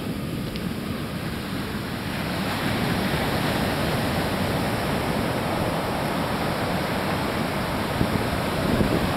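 Ocean surf breaking and washing up a sandy beach, a steady rush that grows louder about two and a half seconds in.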